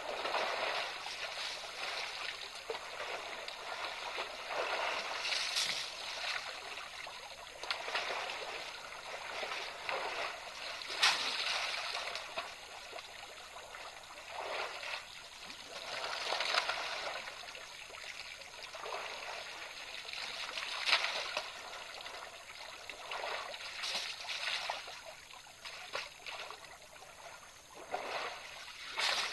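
African elephants splashing in a waterhole: steady sloshing and trickling of water, with louder splashes every few seconds.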